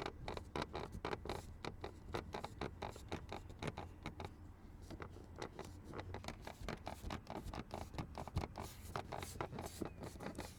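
Car dashboard no longer squeaking, its gap under the windscreen packed with a rubber door seal: only faint, irregular light ticks and scratches over a low steady rumble in the cabin.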